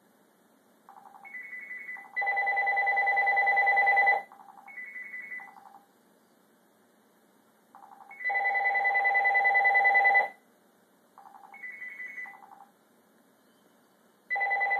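Telephone ringing: electronic trilling rings about two seconds long, each a little louder towards its end, repeating about every six seconds, with shorter, quieter trills between them.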